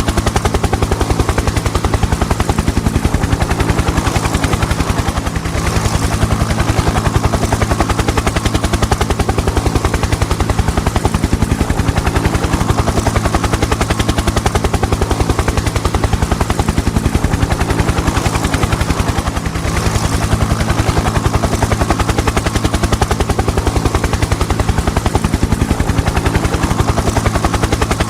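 Helicopter in steady flight or hover: rotor blades chopping in a rapid, even rhythm over a steady low engine hum.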